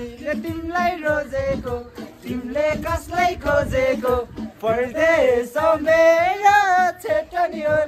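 Voices singing a song without instruments, the notes growing longer and wavering in pitch in the second half.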